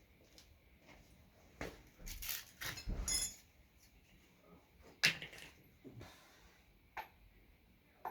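Scattered clinks and knocks of hard objects being handled and set down, with a busier clatter about two to three seconds in and a single sharp knock about five seconds in.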